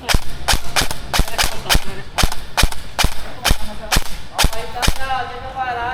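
Airsoft gun firing in rapid single shots, about fifteen sharp cracks a third of a second or so apart, stopping about five seconds in.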